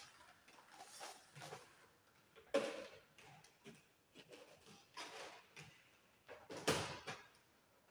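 Electrical cables being pulled and fed through plastic conduit into a consumer unit by gloved hands: irregular faint scraping and rustling, with two louder scrapes, one about two and a half seconds in and one near the end.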